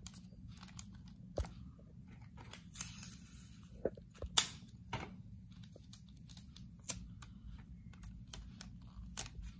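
Clear adhesive tape being pulled off the roll, torn and pressed down over a plastic syringe. There is a short rasp of unrolling tape about three seconds in, a sharp snap a little after four seconds that is the loudest sound, and scattered light clicks and taps.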